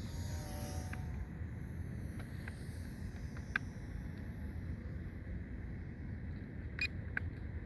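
Steady low rumble of wind on the microphone, with a faint whine from a radio-controlled P-51 Mustang model's motor in the first second and a few sharp clicks, the loudest about two thirds of the way in.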